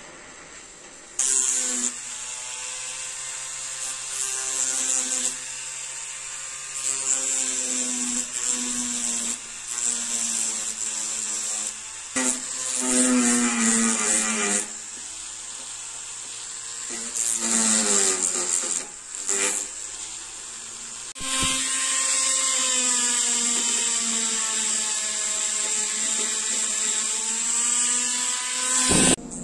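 Jeweller's rotary handpiece spinning a small abrasive bit against a silver ring, a high-speed motor whine that starts about a second in. Its pitch dips and rises several times as the speed and the pressure on the bit change, and it cuts off just before the end.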